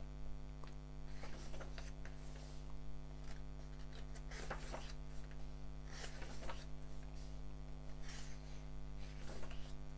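Steady electrical mains hum, with faint soft rustles of the glossy pages of a printed manga volume being handled and turned, several times.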